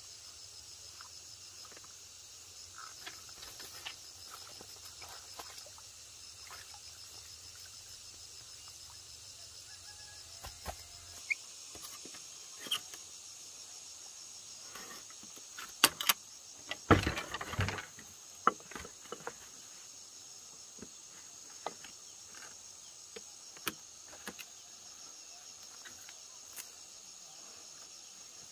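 A steady, high-pitched chorus of insects such as crickets runs throughout, with scattered sharp clicks and knocks. About halfway through there is a denser burst of knocking and rustling that lasts about a second.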